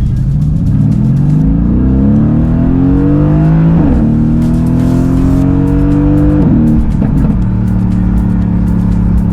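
Mercedes-AMG GT S's twin-turbo V8 accelerating hard through the gears: the engine pitch climbs, drops at an upshift about four seconds in and again around six and a half seconds, then holds steady near the end.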